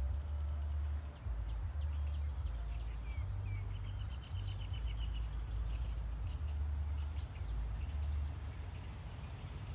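Wind buffeting the microphone in gusts of low rumble, with birds chirping over it and a quick trill about three seconds in.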